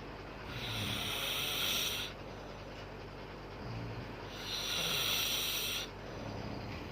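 A woman snoring in her sleep: two long, hissing snore breaths about four seconds apart, with a short low rattle in between.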